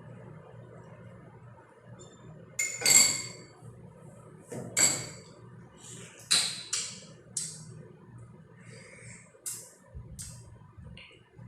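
A balot egg being tapped and cracked open: a series of sharp taps and clinks a second or so apart, the loudest about three seconds in with a brief ring.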